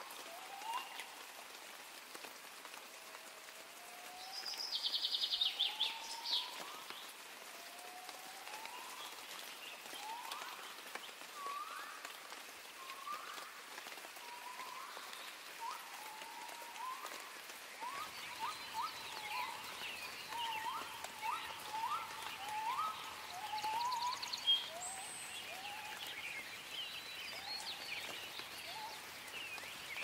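Wildlife ambience: short rising chirps repeat again and again over a steady hiss. A louder, rapid high trill comes about four seconds in, and a faint low hum joins about halfway through.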